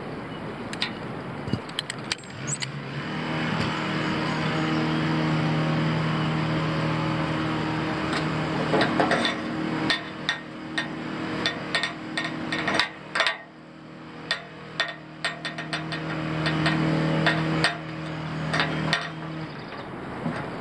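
Sharp metallic clinks of flag-pole hardware (quick links, rope and clips) knocking against the aluminium pole, many of them through the second half. Under them an engine runs steadily from about three seconds in until near the end.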